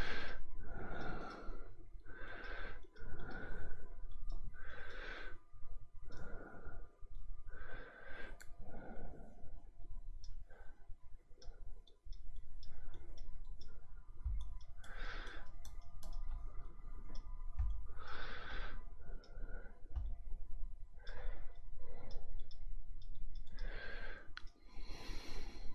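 Computer mouse clicking repeatedly, with soft breathy noises close to the microphone in between.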